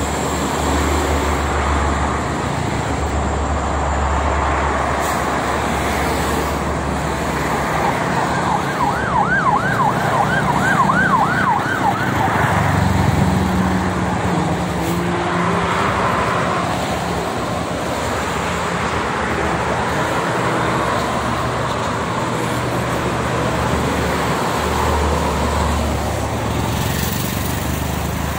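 Steady highway traffic from trucks and cars passing on a multi-lane toll road. About a third of the way in, a siren yelps for a few seconds in quick rising-and-falling sweeps, about three a second.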